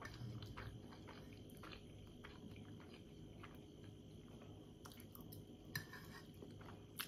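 Faint close-up chewing of soft steamed meat dumplings (manti), with small wet mouth clicks and two sharper clicks near the end.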